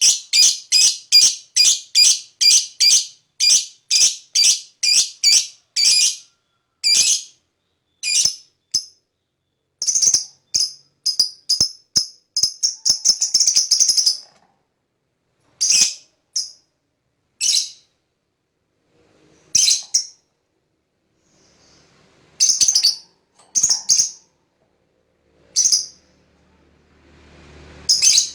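Lovebird calling in a fast run of shrill, sharp chirps, about three a second, for the first few seconds. The calls then thin out into scattered chirps, with one more dense run near the middle and single calls a second or two apart towards the end.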